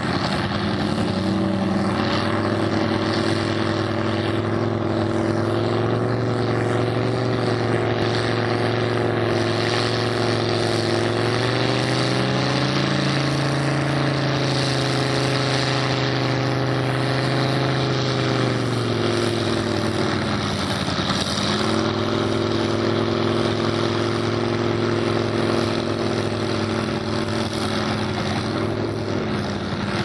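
Engine of a lifted pickup truck on tractor tires running under load as it wades through a flooded mud pit, over a steady rush of churned water. The engine note is steady, climbs a little about twelve seconds in, dips briefly around twenty seconds, then picks back up.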